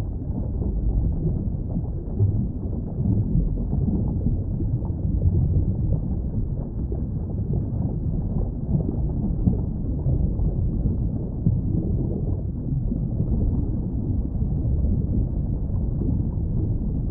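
Underwater ambience: a steady, muffled low rumble with small irregular swells, nothing above the low and middle range.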